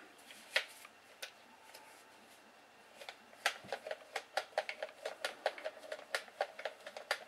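Light plastic clicks from handling a small toy quadcopter and its transmitter while calibrating it: a few single clicks at first, then a quick run of clicks, about three or four a second, from about three seconds in.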